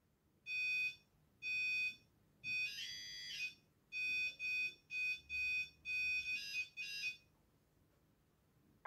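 Tracker PI-2 pulse induction metal detector beeping as a bullet is passed in front of its coil, signalling that the metal target is detected. About ten short beeps of a steady high tone, with one longer, wavering tone about two and a half seconds in; the beeping stops about seven seconds in.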